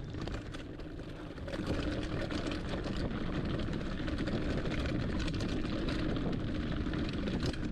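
Hardtail mountain bike descending a dirt singletrack at speed: steady tyre and rushing-air noise with frequent clicks and rattles from the bike over bumps. It grows louder about a second and a half in as the bike picks up speed.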